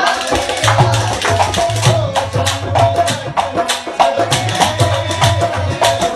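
Rhythmic Indian-style hand percussion in a fast tabla-like pattern: quick sharp treble strokes over deep bass strokes that bend in pitch.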